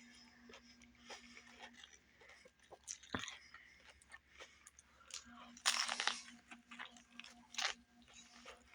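A person eating a Subway sandwich close to the microphone: irregular chewing, crunching and wet mouth clicks, with a louder burst of crunching a little past the middle.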